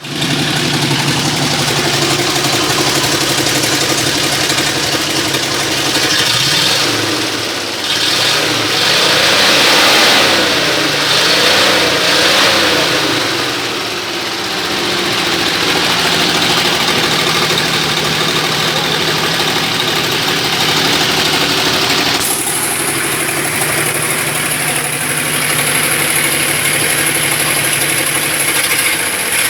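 Ford F-350's 292 Y-block V8 rumbling at idle, revved several times in quick succession from about six seconds in, then settling back to a steady idle after about fourteen seconds.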